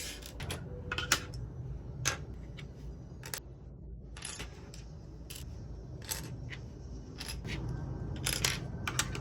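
Small plastic building-block pieces clicking and clattering as they are handled and pressed together: about a dozen sharp, irregular clicks over a low steady hum.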